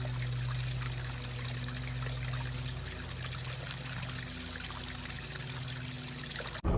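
Steady trickling of running water over a low, even hum; it cuts off suddenly near the end.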